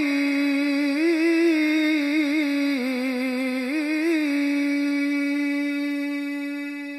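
A male Qur'an reciter's amplified voice draws out the closing 'Sadaqallahul 'azim' as a melismatic chanted phrase, with trills and turns of pitch. About four seconds in it settles into one long held note, which begins to fade near the end.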